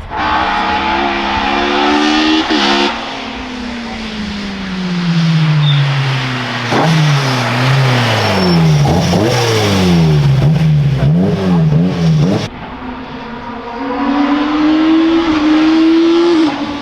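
Hill-climb race car engines: one rising in pitch under hard acceleration, then falling away and swinging rapidly up and down through quick gear changes and throttle blips. It cuts off abruptly about twelve seconds in, and another engine revs up.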